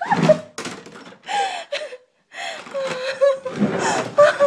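A person gasping and making short, breathy frightened vocal sounds right after being startled by a chipmunk.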